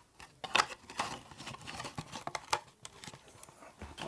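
Irregular clicks, taps and rustling as the packaging and accessories in a mobile phone's box are handled, with a sharp knock about half a second in.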